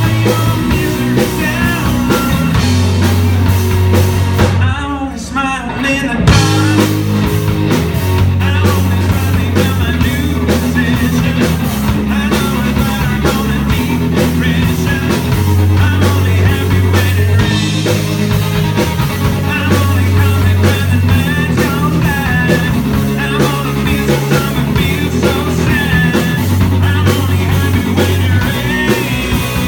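Live rock band playing a song with lead vocals, electric guitar, bass and drum kit. About five seconds in the band briefly drops out, leaving mostly the voice, then comes back in together on a loud hit.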